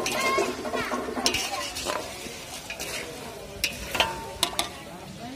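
Chopped onions, tomatoes and green chillies sizzling in hot oil in a large kadai while a perforated metal ladle stirs them, scraping and knocking against the pan several times.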